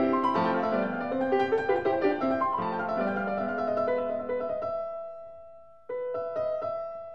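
Background piano music: a flowing run of notes for the first few seconds, then a held chord dying away, and a new chord struck near the end that fades.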